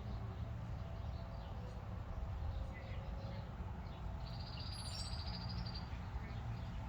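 A bird calling: faint scattered chirps and one high buzzy trill about a second long near the middle, over a steady low rumble.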